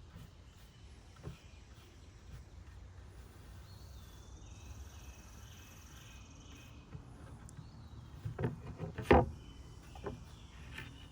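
Outdoor background with faint bird chirps over a low steady rumble, and a few sharp knocks or taps, the loudest about nine seconds in.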